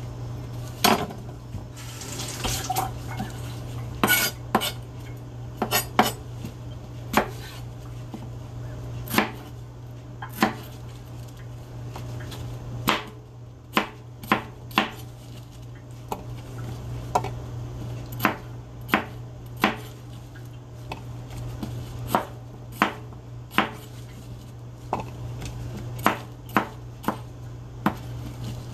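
Broad kitchen knife chopping a green bell pepper on a plastic cutting board: sharp knocks of the blade hitting the board at an uneven pace, sometimes two or three in quick succession, over a steady low hum.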